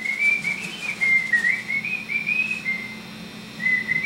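Whistling: a single clear tone wandering up and down in small steps around one pitch for nearly three seconds, stopping briefly and starting again near the end.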